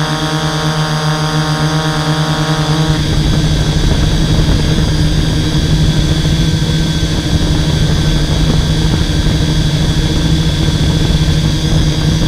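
Hexacopter's six brushless motors and 11-inch propellers running in flight, a steady drone with a strong low hum, heard up close from the onboard camera. About three seconds in the sound turns rougher and a little louder.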